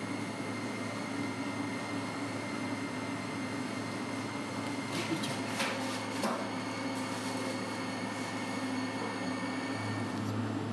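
Steady hum of kitchen equipment, with a few light clicks about halfway through.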